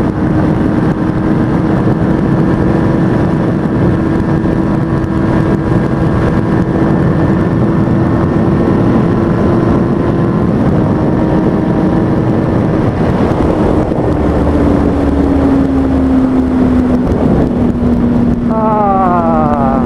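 A 2003 Kawasaki ZX-6R 636's inline-four engine running at steady cruising revs, with heavy wind rush on the helmet microphone. About two-thirds of the way in, the engine note sags slightly as the throttle eases. Near the end, the pitch falls in a few quick drops.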